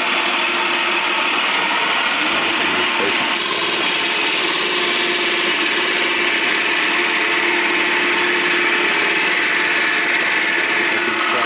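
Bosch jigsaw with an acrylic (PMMA) blade cutting through an acrylic sheet: the motor runs at a steady speed while the reciprocating blade chatters and rasps through the plastic.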